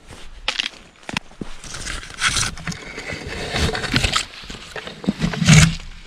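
Irregular footsteps crunching and scraping on a steep dirt forest trail, with rustling. A louder low puff of noise comes near the end.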